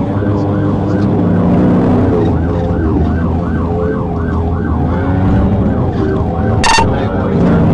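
Police car siren on a fast yelp, rising and falling about three times a second, over a patrol car's engine and road noise during a pursuit. A short sharp beep cuts in near the end.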